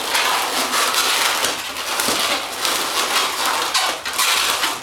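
Latex twisting balloons squeaking and rubbing against each other, a dense run of rubbery creaks and scrapes as they are pressed, twisted and tied together by hand.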